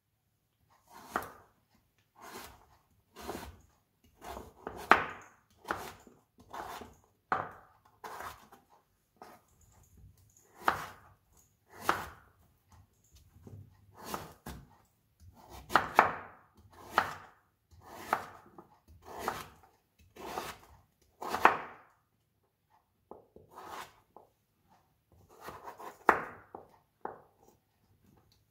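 Kitchen knife chopping pumpkin into cubes on a white plastic cutting board: sharp, irregular strikes about once a second, starting about a second in.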